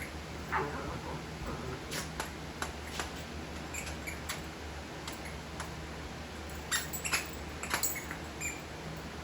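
Small dogs playing with a toy hedgehog: scattered short high squeaks among a series of light clicks and taps, loudest around the second and seventh seconds.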